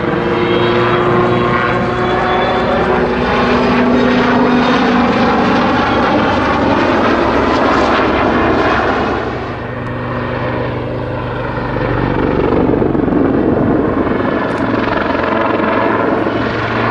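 Army Air Corps Westland Lynx helicopter flying a display routine: the rotor and twin turbine engines run loud and continuously, their pitch bending as it manoeuvres. The sound dips briefly about ten seconds in, then builds again.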